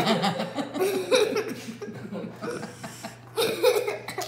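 A girl laughing and giggling in choppy bursts, with a second bout of laughter near the end.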